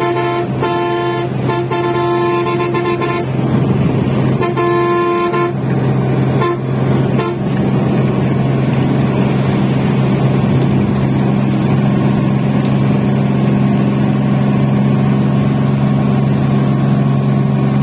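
Bus horn blown in a run of short toots ending in a longer blast, another blast about four seconds in, and two quick taps a little later. Under the horn, the bus engine runs steadily at cruising speed.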